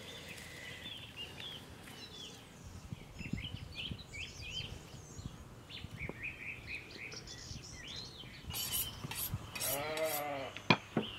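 Small birds chirping throughout, then a sheep bleats once, a single arched call, about ten seconds in. Two sharp clicks follow just before the end.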